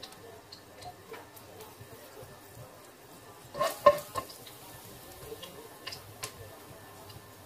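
A few pieces of garlic sizzling softly in oil in a nonstick wok, with scattered small pops. About four seconds in, a spatula scrapes and knocks against the wok, the loudest sound.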